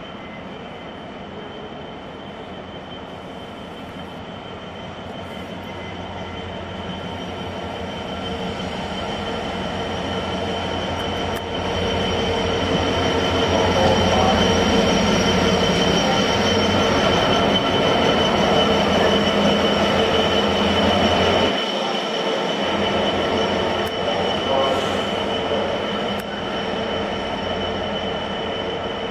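Class 66 diesel-electric locomotive with its EMD two-stroke V12 engine, running past at close range. Its engine sound grows louder as it approaches, with a steady high-pitched whine on top. The sound is loudest as the locomotive passes, then drops suddenly a little past two-thirds of the way through and stays lower as it moves away.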